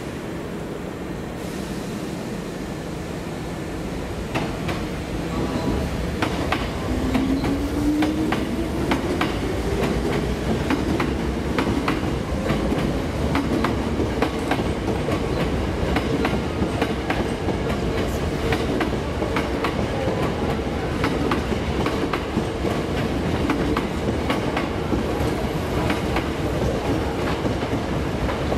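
Hankyu 8300-series electric train running, with the steady click-clack of wheels over rail joints throughout. About six seconds in, a motor whine rises in pitch as the train picks up speed, then holds.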